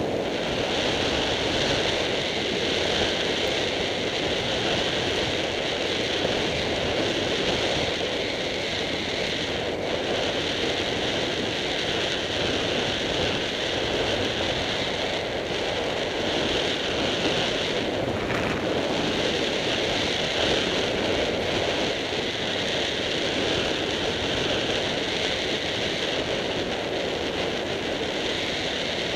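Steady rushing noise of wind over the microphone of a camera on a moving off-road vehicle, with the vehicle rolling along a dirt track underneath; a couple of faint knocks around the middle.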